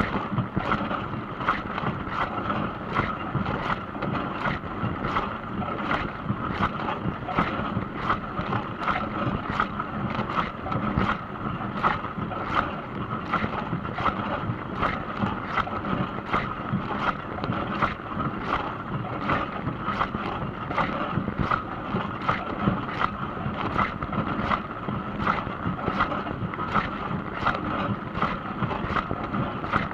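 Dishwasher running through its cycle: water spraying and splashing against the inside of the tub in quick, irregular sloshes over a steady hum.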